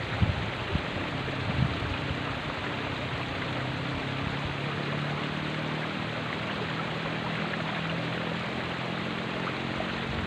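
Steady rush of water running along a shallow irrigation ditch, with a few light knocks in the first couple of seconds.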